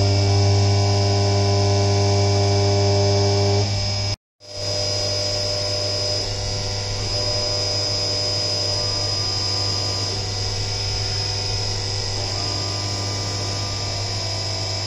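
CNC vertical mill roughing out a metal billet under flood coolant: a steady machine hum with a high whine. The sound drops out for a moment about four seconds in, then carries on slightly quieter.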